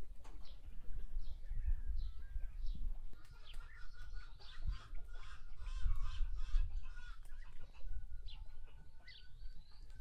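Chickens clucking, mixed with many short, quick chirps from small birds, over a low rumble.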